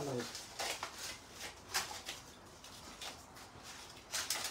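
Thin cooked flatbread for chakhchoukha being torn into pieces by hand, a run of irregular crackles and rustles.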